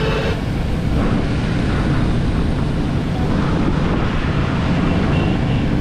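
Wind buffeting the microphone while moving through traffic on a wet road, a steady rushing noise mixed with vehicle road noise. A steady horn-like tone cuts off just after the start.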